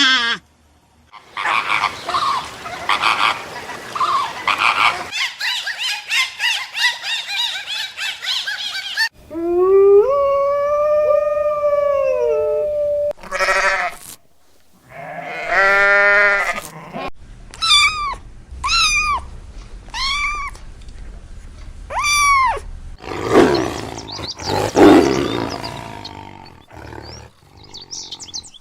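A series of different animal calls, one after another. There are rough pulsing cries, a long call that rises and falls in pitch, then five short calls that each sweep downward.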